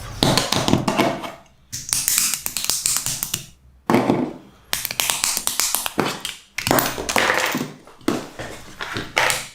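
Mega Construx plastic building pieces clicking and snapping together in five bursts of rapid taps, each starting loud and fading.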